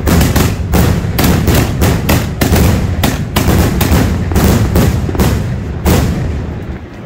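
Aerial firework shells fired from a milk-crate rack, going off in a rapid barrage of booming reports, about three a second. The last report comes about six seconds in.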